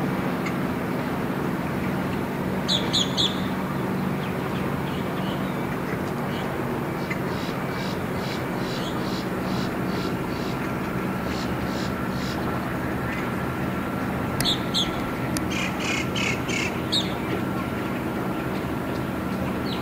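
A Yamaha 150 outboard on a center-console boat running steadily at low speed, a low even hum. Birds call over it, with a few short chirps and rapid strings of repeated calls.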